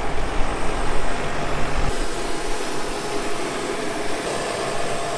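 Tractor engine running steadily as it pulls a multi-row precision seeder across the field. About two seconds in the deep rumble drops away and a steady high whine stands out.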